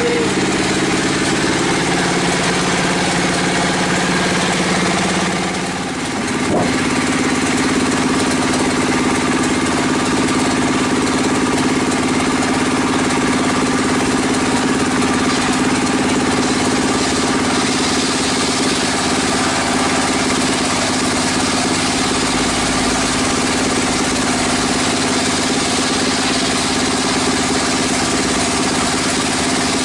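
Bench-mounted circular saw (serkel) and its drive running with a steady mechanical hum while a timber beam is ripped into planks. About six seconds in the level dips briefly and the main tone steps up in pitch, then it runs steadily again.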